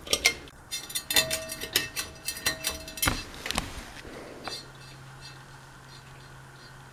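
Metal pull chain on a Hunter Stratford II ceiling fan jingling and clicking against the fan's housing, with a faint ringing, for about three and a half seconds. A low steady hum starts about four and a half seconds in.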